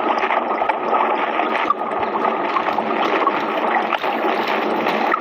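Steady underwater bubbling and gurgling, with many small bubble pops scattered through it.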